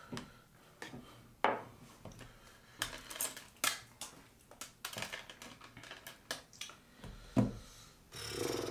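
Small hard objects clicking and knocking as things are picked up and set down on a bathroom counter, with a few sharper knocks. A steadier noise starts near the end.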